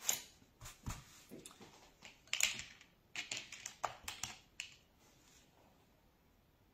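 Irregular small clicks, taps and short rustles of handling painting materials at a table, starting with a paper tissue dabbed on the paper, stopping about five seconds in.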